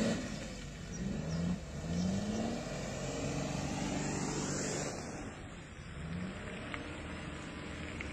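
Off-road 4x4's engine revving in a few short rising pulls as it drives through mud, loudest at the start and quieter afterwards.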